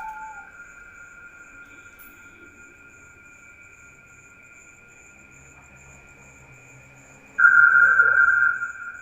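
Night insects droning steadily on one high pitch, with a faint, rapidly pulsing chirp above it. About seven seconds in, the high drone suddenly swells loud for about a second and a half, then drops back.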